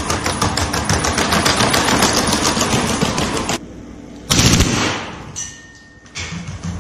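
Rifle mounted on a quadruped robot dog firing a long automatic burst of rapid shots that stops about halfway through. About a second later comes a single loud bang that fades away, and a shorter loud sound near the end.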